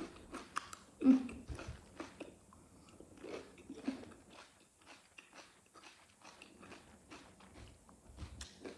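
A person chewing food close to the microphone: wet mouth clicks and crunches throughout, with a few short low hums of enjoyment.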